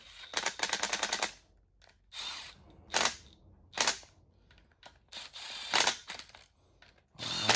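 Cordless Milwaukee M12 Fuel impact tool running bolts into an engine's front gear housing case, in several short bursts of rapid clicking hammering. The longest burst, about a second, comes near the start, and the last comes near the end.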